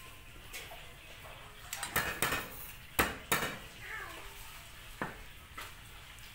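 Knife blade knocking and clinking against a plate while garlic cloves are peeled and cut, in a few sharp taps with the loudest about two and three seconds in.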